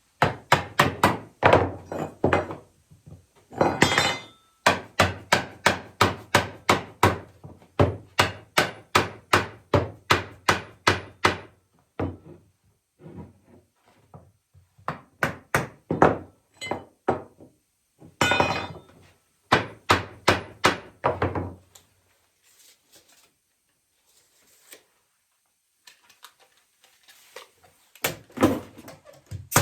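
Hammer blows on wood as the walnut rocking chair's parts are driven together. They come in long runs of quick, even strikes, two or three a second, broken by short pauses.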